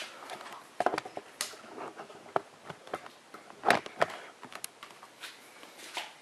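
Handling noise of a hand-held video camera being carried and set down: scattered clicks, rustles and knocks, the loudest knock a little before four seconds in as it comes to rest.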